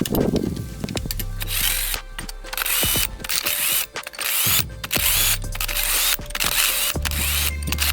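Ratchet wrench clicking as fasteners are worked loose during an engine teardown, with background music.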